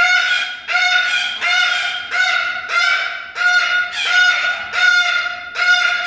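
Umbrella cockatoo calling loudly over and over, about nine calls in six seconds, each held about half a second on a steady pitch.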